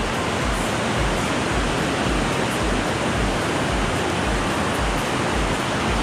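Whitewater rapids rushing over the top of a waterfall: a steady, dense rush of falling water.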